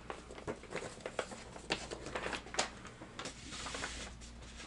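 Handling noises from a paper manila envelope: a scattered run of light clicks and taps, with a short stretch of paper rustling a little before the end.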